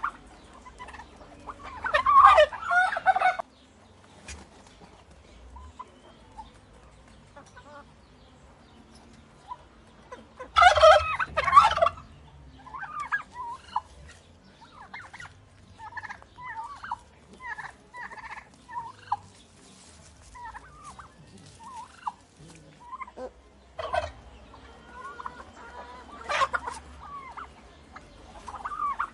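Turkeys gobbling: loud rattling gobbles about two seconds in and again about ten seconds in, with shorter, softer calls in between and two weaker gobbles near the end.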